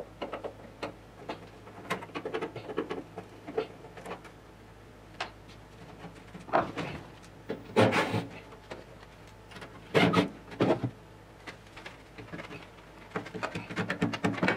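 Small clicks, taps and scrapes of a screwdriver and plastic trim being handled while an interior dome light and roof trim cover are worked loose from a classic car's roof, with a few louder rattles about seven and ten seconds in.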